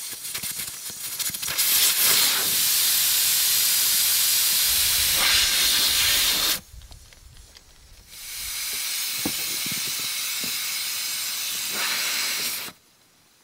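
Air hissing out of a large off-road tyre's valve stem as the tyre is let down to low pressure for deep snow. There are two long, even hisses: the first cuts off abruptly about six and a half seconds in, and the second, a little softer, starts after a short pause.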